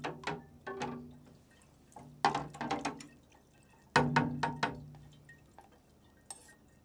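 Metal spoon knocking and scraping in a mesh sieve set over a funnel, in three quick bursts of about three clinks each, each ringing briefly, as wet trub is worked in the sieve so the wort drains through. Wort drips through the sieve.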